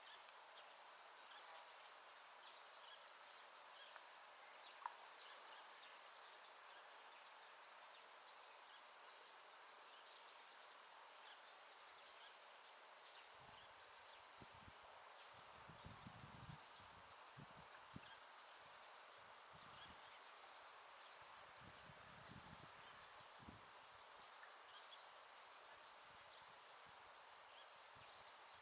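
Steady high-pitched chorus of insects, crickets or similar, that swells and fades slowly, with faint low thumps around the middle.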